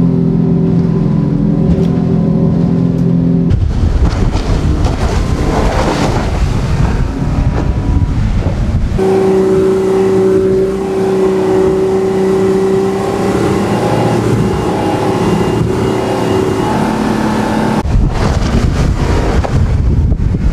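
A 300-horsepower outboard engine running hard at high speed on a planing aluminium boat. It gives a steady, even engine drone for the first few seconds and again for most of the second half. In between, and near the end, the rush of wind and water spray takes over.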